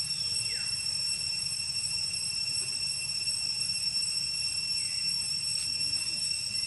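Outdoor ambience: a steady high-pitched drone of several even tones, with a short falling chirp about half a second in and another around five seconds in, over a low rumble.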